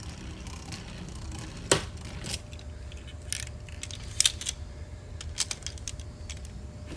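Beyblade spinning tops clacking with sharp plastic-and-metal clicks, the loudest about two seconds in. From then on a faint steady whine runs underneath.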